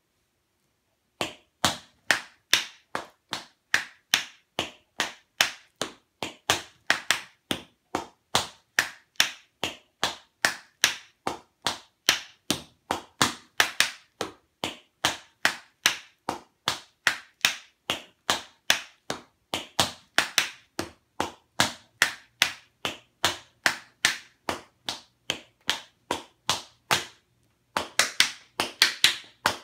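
Tap dancing: tap shoes striking a hard tile floor in a steady run of sharp taps, two to three a second, starting about a second in. Near the end there is a brief pause, then a quicker flurry of taps.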